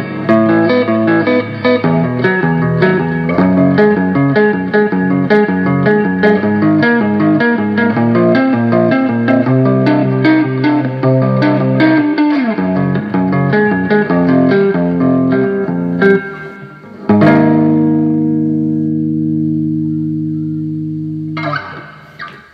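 1978 Greco Les Paul electric guitar with Iron Gear Blues Engine humbuckers, played through a NUX Mighty Air amplifier: quick single-note lead lines for about sixteen seconds, then a final chord struck and left ringing. The chord is stopped with a short scratch just before the end.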